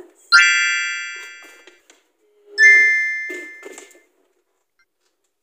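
Two bright chime sounds, like mallet-struck glockenspiel notes. The first is a full cluster of ringing tones about a third of a second in, and the second is a simpler two-note chime about two and a half seconds in. Each starts suddenly and fades out over about a second and a half.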